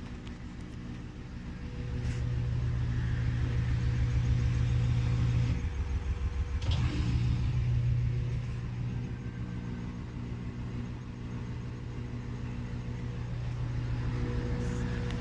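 Whirlpool washing machine on its final spin: the drum turning with a low, fast-pulsing rumble and a steady motor hum. The rumble grows louder about two seconds in, and there is one sharp knock about seven seconds in. The owner hears knocking and squealing in this spin and wonders whether it is the drum bearings or the spider arm.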